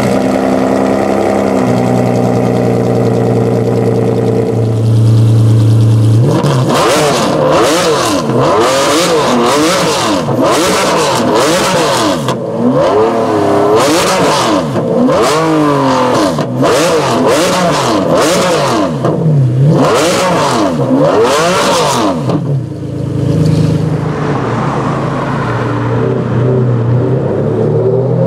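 Ferrari Enzo's V12 engine idling steadily, then revved hard again and again in quick rising and falling blips for about sixteen seconds, before it settles back to idle with one more short blip near the end.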